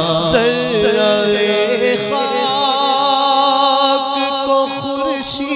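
Devotional naat singing: a voice holding long, wavering notes that glide between pitches, with no words sung.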